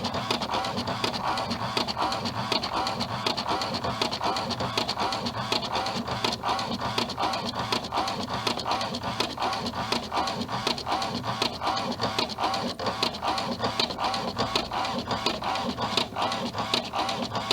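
Printer running: a steady, rapid clatter of mechanical clicks that continues without a break.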